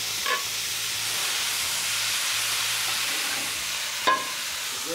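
Boiled broccoli rabe sizzling in hot garlic and oil in a sauté pan on a gas burner, a steady frying hiss. A single sharp knock about four seconds in.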